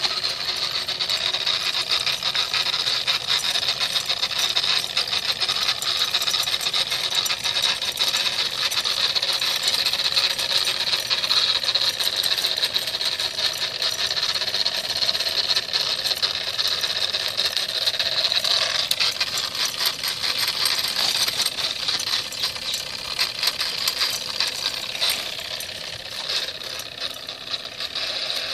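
Wilesco toy steam tractor running under steam: a rapid, even chuffing clatter from its small engine and gearing over a steady hiss. It grows fainter near the end.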